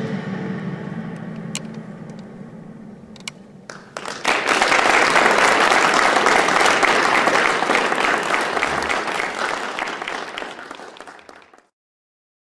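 The music's last chord dies away over the first few seconds, with a few scattered claps. Then an audience applauds from about four seconds in, fading out and stopping shortly before the end.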